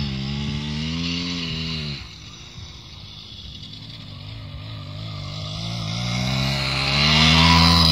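Delta RMR 24 motorcycle engine revving up and down. It drops back about two seconds in, then climbs steadily in pitch and loudness near the end.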